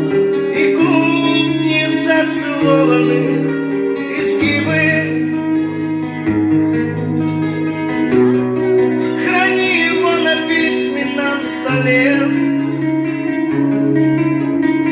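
Instrumental song introduction: guitar over held chords, with bass notes that change every second or two and a wavering lead melody above.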